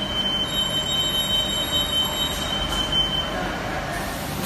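Steady machinery noise from an automated PCB plating line. A high thin whine runs over it and fades out about three seconds in.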